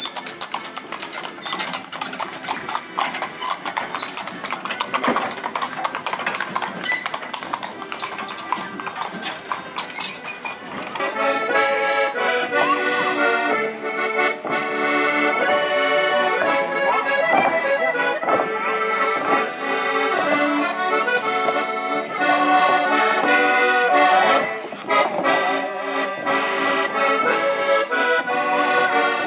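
Horse hooves clip-clopping on brick paving. About eleven seconds in, an accordion starts playing a traditional folk-dance tune, louder than the hooves.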